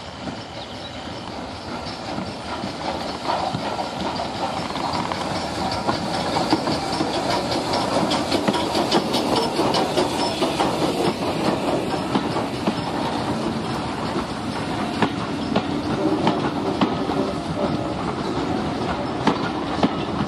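S&DJR 7F 2-8-0 steam locomotive No. 53808 and its train of coaches running past close by. The sound grows louder over the first few seconds as the engine approaches, and then the coaches' wheels click over the rail joints as they roll by.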